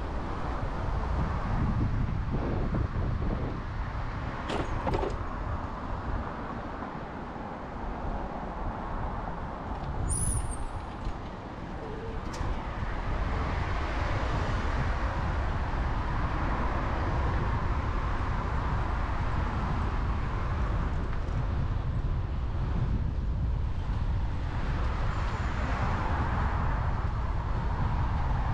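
City road traffic: a steady rumble of passing cars. A few short clicks and a brief high squeak about ten seconds in.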